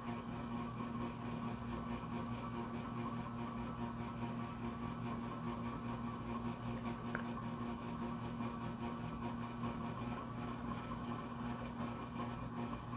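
A steady low hum with a faint hiss, unchanging throughout, like a fan or appliance running in a small room.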